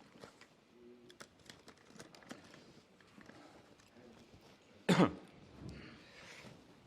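A person coughing once, sharply, about five seconds in, over faint scattered clicks and handling noises.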